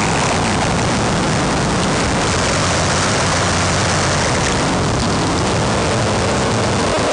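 Harsh noise music: a dense, unbroken wall of distorted noise with a heavier low rumble underneath, held at a steady loud level.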